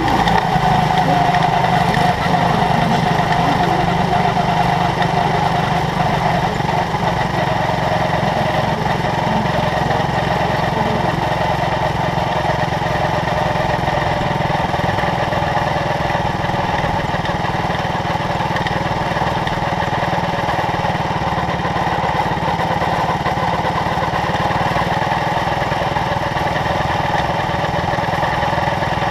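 Quarter midget race car's small single-cylinder engine, heard close from the onboard camera. It eases off after the checkered flag, its pitch dropping over the first several seconds, then runs steadily at low speed on the cool-down lap.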